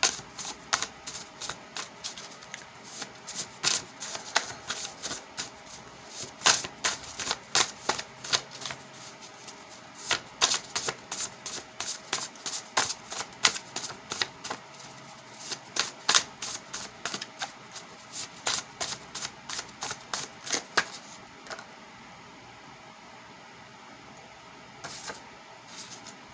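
A deck of reading cards being shuffled by hand: a fast run of sharp taps and slaps, about two or three a second, that stops about 21 seconds in, with two more taps near the end.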